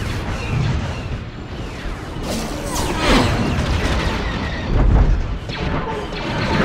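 Sci-fi film space-battle soundtrack: booms of explosions and cannon fire mixed with orchestral score, with sweeping pitch glides. The heaviest boom comes about five seconds in.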